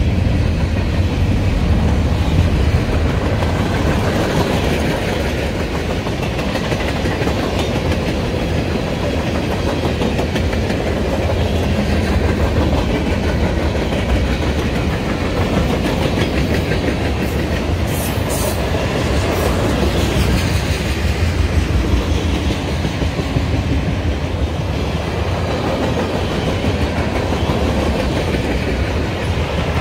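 Freight train cars rolling past at close range, gondolas giving way to tank cars: a steady rumble of steel wheels on rail with a continuous clickety-clack.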